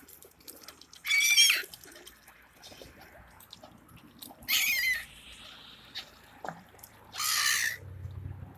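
Three short, shrill calls from waterbirds gathered for bread, about three seconds apart. A faint low hum rises under the last of them.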